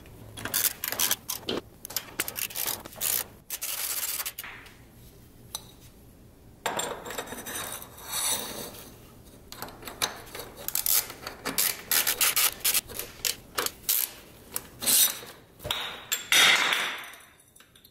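A Radium fuel filter and its mount scrape and rub against the car's underbody as they are handled and fitted. Later comes a hand ratchet clicking in quick, repeated strokes as the mount's bolt is run in.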